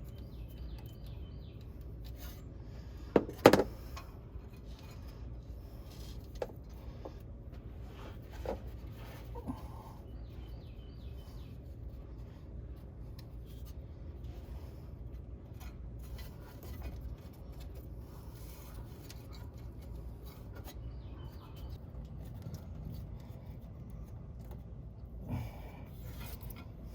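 Hand tools and wiring being worked under a vehicle: scattered rubbing and small clicks, with a sharp double clack about three seconds in, over a low steady hum. Short high chirps come a few times.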